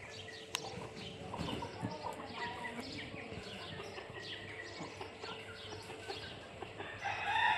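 Many small birds chirping in short, overlapping calls. There is a sharp click about half a second in, and a louder drawn-out call near the end.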